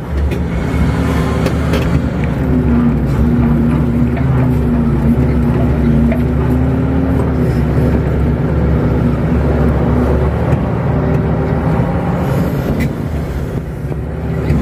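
KATO hydraulic excavator's diesel engine running steadily under load, heard from inside the cab while the boom and bucket dig and lift soil. A stronger held tone sits in the engine drone from about two seconds in to about ten seconds in.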